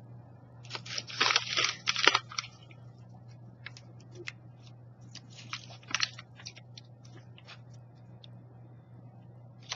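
Someone biting and chewing crunchy roasted chickpeas: a run of loud crunches about one to two seconds in, then scattered smaller crunches that die away after about seven seconds.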